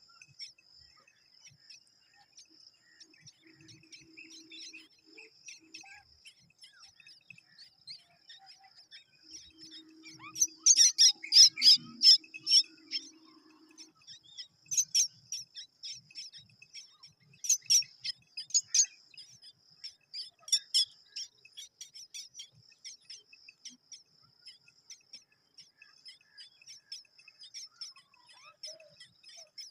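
Mynas calling in bursts of rapid, sharp chirps, loudest about a third of the way in, over a steady high-pitched insect trill.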